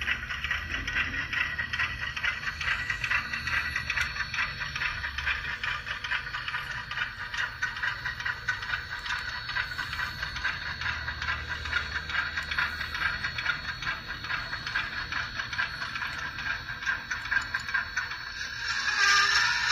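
Model train of short tank cars rolling along the track, its wheels rattling and clicking steadily over the rails over a low motor hum. It grows louder near the end.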